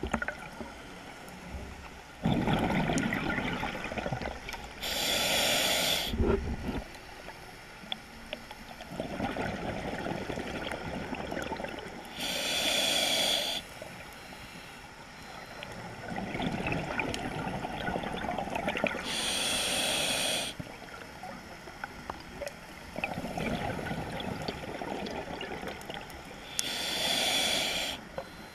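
Scuba diver breathing through an open-circuit regulator underwater. About every seven seconds there is a short hissing inhale, then a longer burble of exhaled bubbles, four breaths in all.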